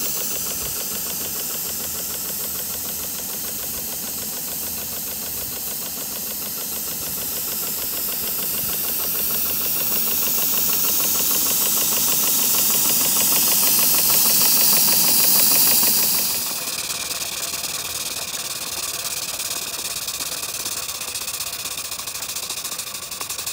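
Maxitrak 1-inch-scale Burrell live-steam traction engine running: a loud steam hiss over fast, even exhaust beats. The hiss swells and then drops off sharply about sixteen seconds in, leaving the quick chuffing.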